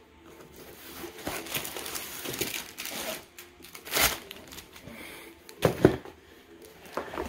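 Plastic-wrapped bundles of diamond-painting drill bags crinkling as they are handled, with two thumps about four and six seconds in as bundles are set down, the second the louder.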